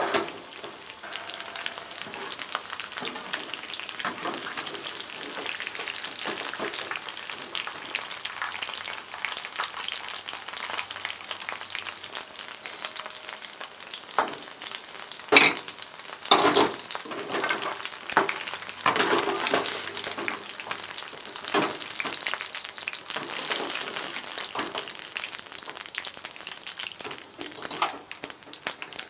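Hot oil sizzling and crackling in a frying pan while fried pieces are lifted out with a slotted metal skimmer. The skimmer knocks and scrapes against the pan a few times past the middle.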